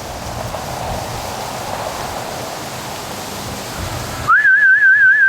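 Wind rushing over the microphone, then about four seconds in a loud, warbling duck-calling whistle starts, its pitch wobbling rapidly up and down, calling the ducks home.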